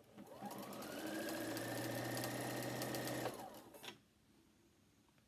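Electric sewing machine stitching a seam: the motor speeds up with a rising whine, runs steadily for about three seconds, then slows and stops.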